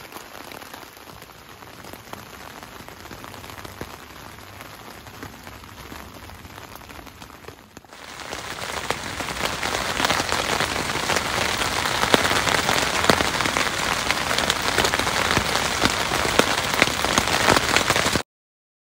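Pouring rain pattering on a tent's fly, heard from inside the tent. About eight seconds in it changes to louder, denser rain with many sharp drop taps, then cuts off suddenly near the end.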